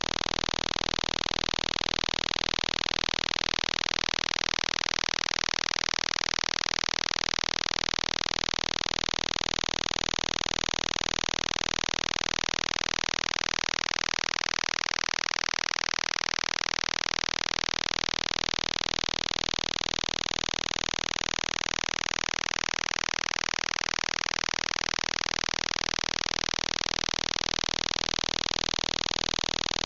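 Harsh, steady buzzing noise of a shortwave radio signal received through a web-based software-defined radio, with a fast pulsing texture and slow swells in its tone.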